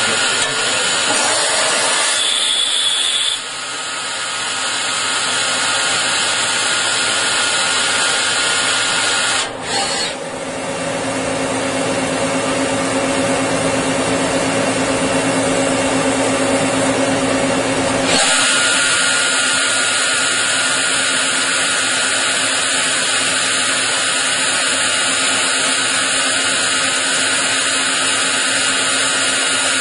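CNC turning centre machining brass bar stock: a steady cutting and spindle whine with chip noise. The sound changes abruptly about three, ten and eighteen seconds in, with a steady low hum during the middle stretch.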